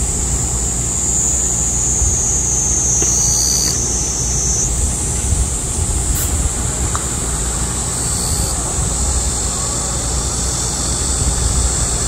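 A chorus of midsummer cicadas buzzing steadily at a high pitch, with the tone shifting slightly a little under halfway through, over a low rumble.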